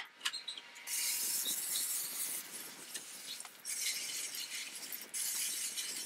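Garden hose spray nozzle hissing as it jets water onto a plastic water-softener brine tank grate, rinsing off salt sludge. The spray comes in three bursts of a second or two each.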